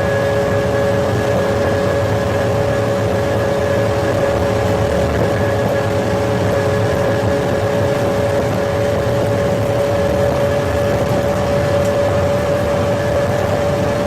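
Pagani Zonda F Clubsport's V12 engine running at steady, unchanging revs in a continuous drone.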